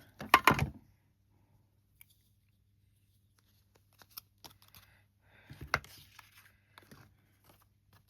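Short rustles, taps and clicks of paper-craft materials being handled, with the loudest rustle about half a second in and another cluster of rustles and a sharp tap a little before the end.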